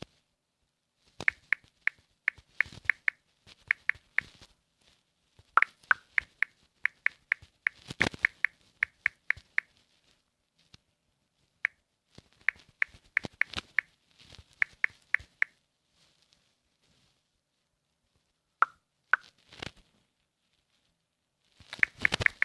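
Smartphone touchscreen keyboard making short key-tap clicks in quick runs of several taps, with pauses between the runs, as a message is typed.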